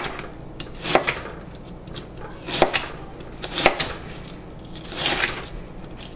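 Kitchen knife cutting a red onion on a wooden cutting board: about five slow, uneven cuts, each ending in a knock of the blade on the board.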